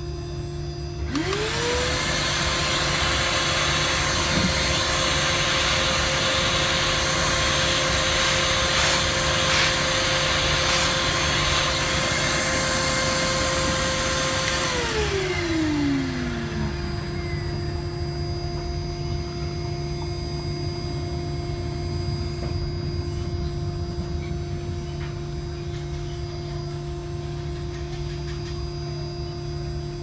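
IC grinding machine's spindle spinning up about a second in, running at one steady whine with a loud hiss while it grinds the memory chip off an iPhone 6S logic board, then winding down in a falling whine about halfway through. A steady machine hum carries on afterwards.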